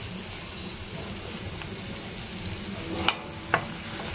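Hot ghee sizzling in a stainless steel pan around a heap of finger millet flour, a steady frying hiss. About three seconds in, two sharp clicks as a spoon starts stirring the flour against the pan.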